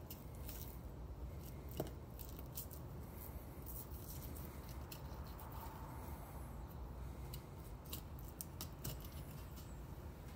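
Knife slicing breast meat away from a goose's breastbone, giving faint, irregular small clicks and scrapes, one sharper click about two seconds in.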